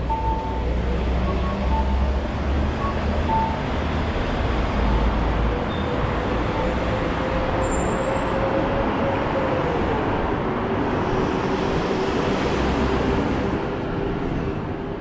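Road traffic running close by: a steady rumble of passing vehicles, with one engine note that drops in pitch about ten seconds in as a vehicle goes past.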